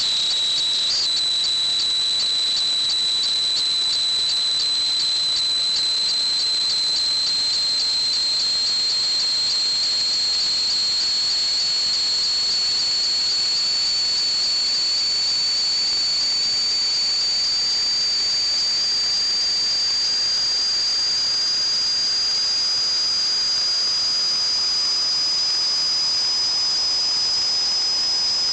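A continuous high-pitched whistle over a hiss, holding steady in loudness while its pitch creeps slowly upward.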